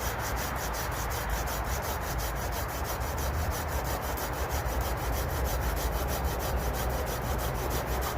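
Silky Gomboy folding saw with a curved 240 mm blade cutting through a silver birch branch: a steady, continuous rasping of saw teeth in wood.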